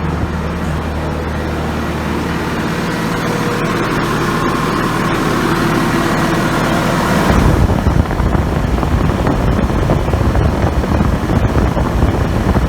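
Bobcat S650 skid steer's diesel engine running on a newly fitted fuel pickup line. Its pitch climbs through the middle, and about seven seconds in the sound turns to a louder, rougher low rumble.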